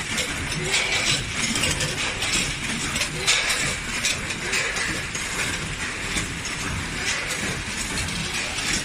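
Compact multihead weigher and packing machine running steadily, with short crisp bursts recurring every second or so through its packing cycle.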